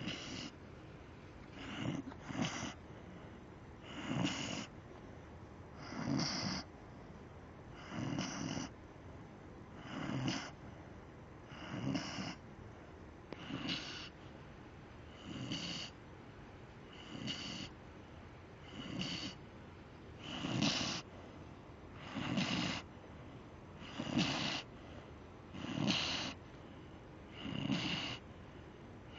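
Pit bull snoring, one snore about every two seconds in a steady, even rhythm.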